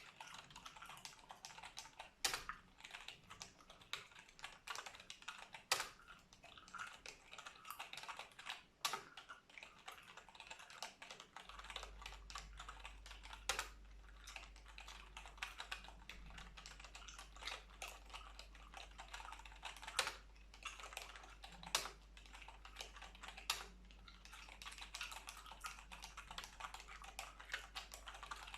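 Computer keyboard typing: fast, irregular runs of key clicks with a few louder single key strikes.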